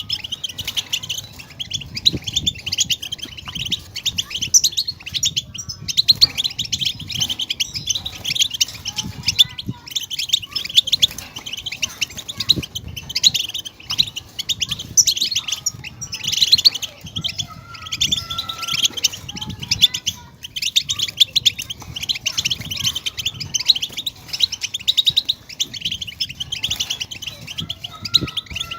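European goldfinch singing: a fast, unbroken, twittering and trilling song.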